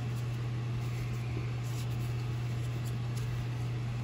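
Steady low room hum with an even hiss, and a couple of faint soft rustles of trading cards being slid from hand to hand.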